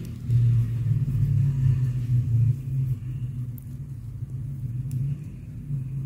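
A low, steady motor-like rumble, louder for the first couple of seconds and again near the end, with a few faint clicks.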